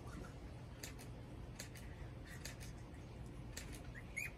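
Scattered faint sharp clicks, then near the end a few short, high squeaks from young puppies.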